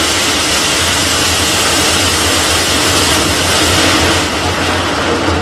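Falcon 9 rocket at liftoff, its first-stage Merlin engines giving a loud, steady roar that eases slightly near the end.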